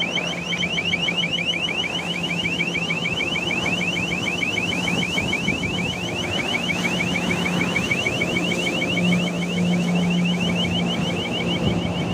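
A fast electronic yelping alarm, about seven rising chirps a second, over a steady engine drone that grows a little louder near the end.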